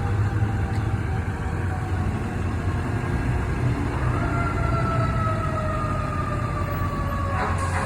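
Fire truck engine rumbling as it pulls out on a call. About four seconds in, a siren winds up sharply, then slowly drops in pitch.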